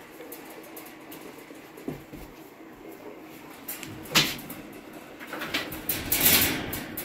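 A sharp knock about four seconds in, then a longer rustling clatter around six seconds, from a pet monkey moving about her wire-mesh enclosure.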